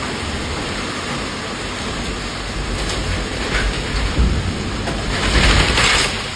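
Heavy wind-driven rain in a violent windstorm: a steady rushing roar over a low rumble, with gusts swelling louder about four seconds in and again near the end.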